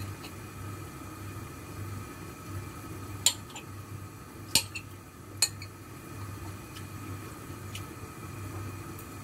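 A few sharp clinks of kitchenware, three louder ones in the middle and a couple of fainter ones later, over a steady low hum.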